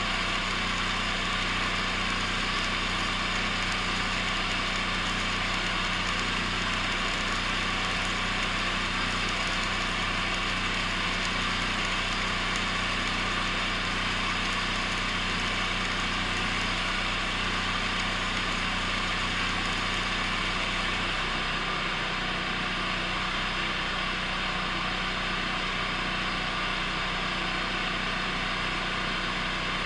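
Stick-welding arc on 6010 rod, a steady crackling hiss, over the steady hum of a running engine. The hum's low tone changes about 21 seconds in.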